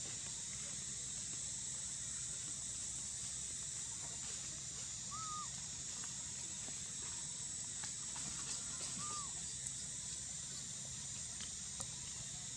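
Outdoor ambience: a steady high hiss, with two short rising-and-falling call notes about five and nine seconds in and a few faint ticks.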